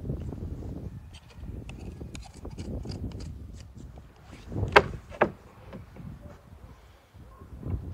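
Knife cutting and scraping through a raw rack of ribs, with the meat handled on a wooden cutting board and many small ticks and rubs. Two loud knocks on the board come about halfway through.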